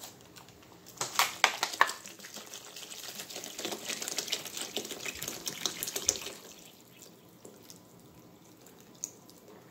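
Water poured from a plastic gallon jug into a stockpot full of sliced mushrooms and vegetables, splashing onto them. A few sharp clicks of the plastic jug come about a second in, and the pour grows quieter after about six seconds.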